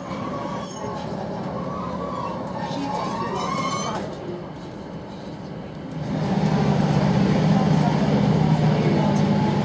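Inside a diesel passenger train slowing through a station: a wavering squeal over the first few seconds over the running noise, then about six seconds in the low engine drone swells and holds steady.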